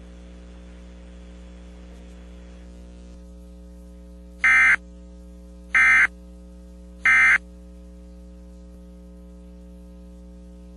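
Emergency Alert System end-of-message signal: three short, identical bursts of SAME digital data tones, each about a third of a second long and about 1.3 s apart, starting a little over four seconds in, marking the end of the alert test. A steady low hum runs underneath.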